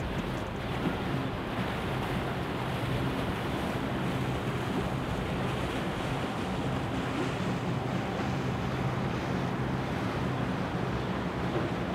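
Motorboat cruising past at low speed: a steady low engine hum under the continuous rush of its bow wake and churned water.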